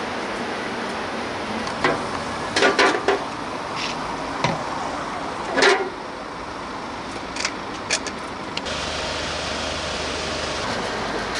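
Steady street background noise, like passing traffic, with several short knocks and clatters on top; the loudest come in a cluster just under three seconds in and again about five and a half seconds in.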